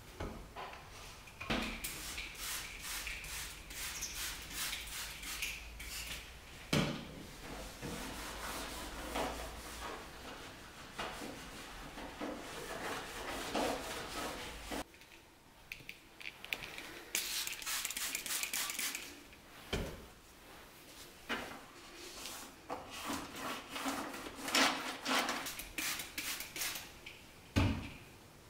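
A cloth wiping and scrubbing the dishwasher's door edge and inner door panel in repeated rubbing strokes, with a few knocks as the door and its fittings are handled.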